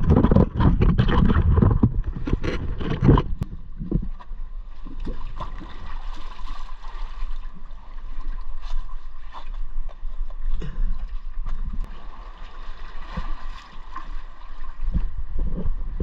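Sea water splashing and sloshing around the camera, loud and crackling for the first three seconds, then settling into quieter, irregular lapping.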